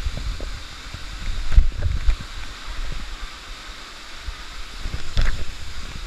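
Steady rush of a nearby waterfall. Low thumps from wind and handling on the microphone come about one and a half to two seconds in and again about five seconds in.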